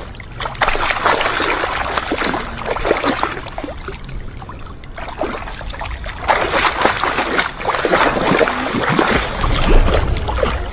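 Water splashing and sloshing as jaguars swim through shallow sea water, in two longer stretches with a quieter spell between. A low rumble comes in near the end.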